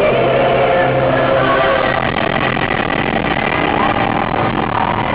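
Loud, muddy mix of vehicle noise, voices and music.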